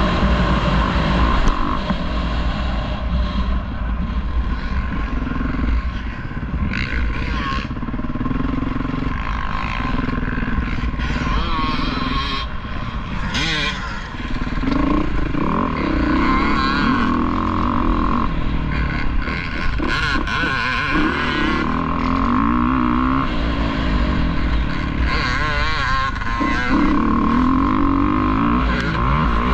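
Dirt bike engine revving up and falling off again and again as it is ridden, its pitch rising and dropping with each throttle change. Heard from on board, with heavy wind rumble on the microphone.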